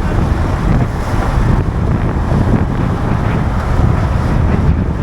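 Strong wind buffeting the microphone on a boat under way at sea, over a steady rush of water.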